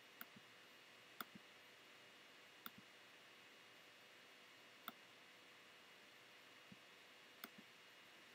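Near-silent room tone broken by about six faint, unevenly spaced clicks, some in quick pairs.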